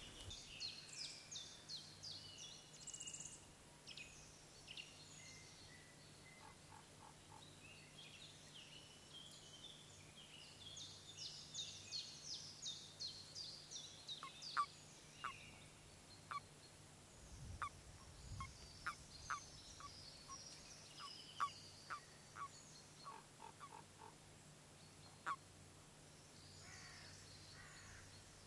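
Wild birds singing: quick runs of high chirping notes, busiest in the first few seconds and again from about ten to fifteen seconds in, then a scatter of short, sharp single chirps. A faint steady low hum lies underneath.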